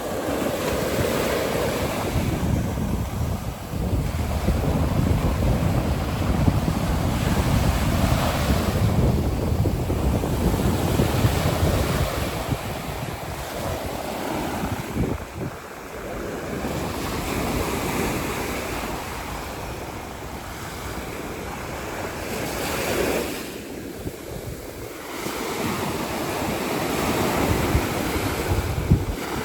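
Mediterranean surf breaking and washing up a sandy beach in slow swells, with wind rumbling on the microphone, heaviest in the first half.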